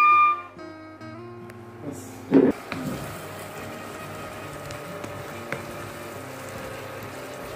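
A bamboo flute note ends, followed by soft background music. About two and a half seconds in there is a single loud thump, and then chicken sizzles steadily in a frying pan as a wooden spatula stirs it.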